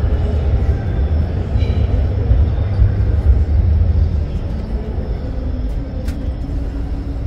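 Steady low rumble under a dense background din, the ambient noise of a large, busy exhibition-hall floor, easing off slightly in the second half.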